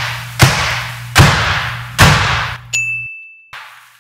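Shotgun shells going off one after another as a laser cutter's beam reaches each in turn: sharp bangs about three-quarters of a second apart, three loud ones and then a weaker fourth, over a low hum. A high steady beep sounds with the last bang, lasting under a second.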